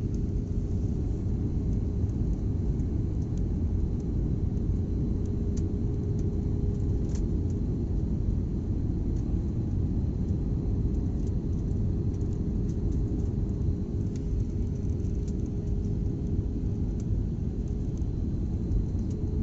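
Airliner cabin noise on final approach with the landing gear extended: a steady, even rumble of engines and airflow with a faint steady hum through it.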